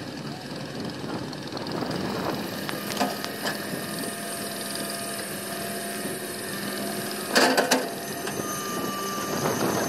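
Komatsu excavator's engine running steadily, with a few sharp knocks and a louder clatter of knocks about seven and a half seconds in.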